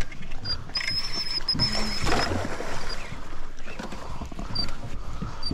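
Wind and water noise around a small fishing boat drifting on open sea. A thin, high, wavering whine is heard briefly between about one and two seconds in.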